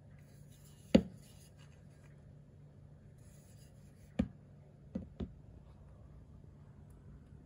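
Handling noise from a fixed-blade knife with a micarta handle being turned and moved in the hand: a sharp knock about a second in, soft rubbing, then a single knock and two quick knocks about a second later.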